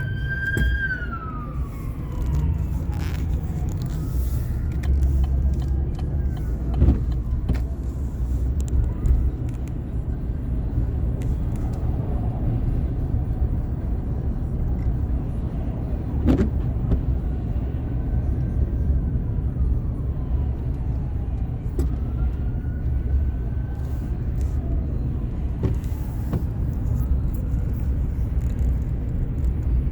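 Ambulance siren wailing in slow rises and falls of pitch. It is loudest and clearest at the start, then fainter and fainter in later cycles as it moves away. Underneath runs the steady low rumble of traffic and road noise.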